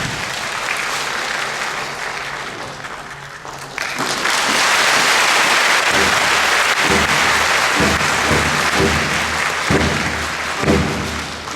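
Audience applauding, swelling louder about four seconds in. About halfway through, a military band's low, evenly spaced drum beats come in under the clapping as the music starts up.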